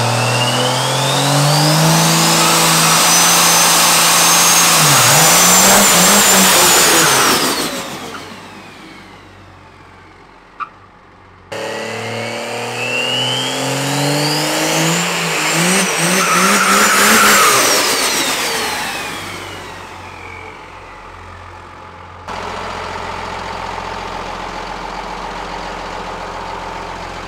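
Stroker 6.1L 12-valve Cummins diesel with compound turbochargers revving hard twice. Each time a turbo whistle climbs to a high whine, holds, then falls away as the engine drops back. Near the end it settles into a steady idle.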